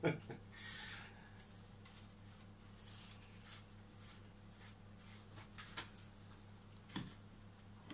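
Faint rustling and scraping as a wild olive cutting and its small bonsai pot of pumice are handled, with one sharp knock about seven seconds in. A low steady hum runs underneath.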